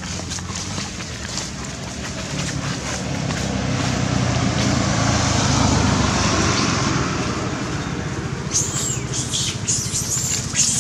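Low hum of a passing motor vehicle, growing to its loudest about halfway through and then fading. Near the end come a run of sharp, high, short clicks and chirps.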